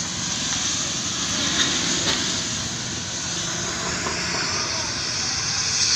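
Fire burning after a gas cylinder blast: a steady rushing hiss, with a couple of faint cracks at about one and a half and two seconds in.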